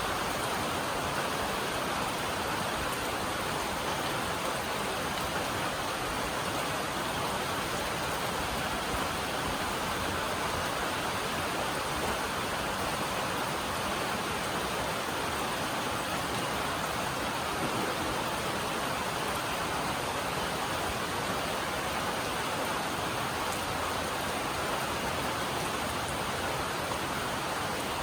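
Steady heavy rain drumming on a metal roof: a dense, even hiss with no single drops standing out.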